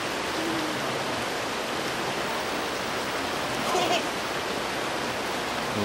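Steady rush of a waterfall and creek.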